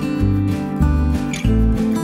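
Background music led by strummed acoustic guitar over a steady bass line.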